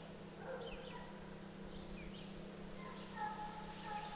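Faint songbirds chirping with short, high calls, and about three seconds in a faint drawn-out whining call begins.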